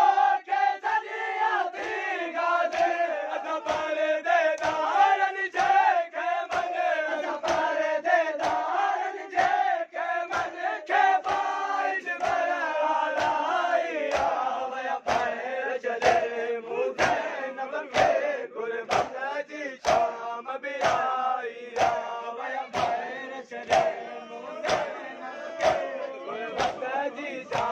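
Crowd of men chanting a noha in unison while beating their chests in matam, the open-hand strikes landing together in a steady rhythm about once a second.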